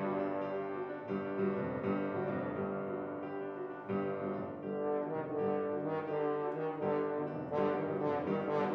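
French horn playing sustained melodic notes with piano accompaniment, a live horn-and-piano duo performance.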